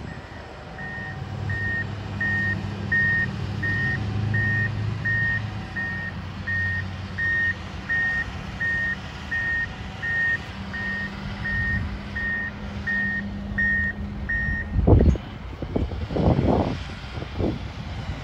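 A John Deere motor grader reversing: its backup alarm beeps steadily, about one and a half beeps a second, over the low running of its diesel engine, and stops near the end. A few thumps follow.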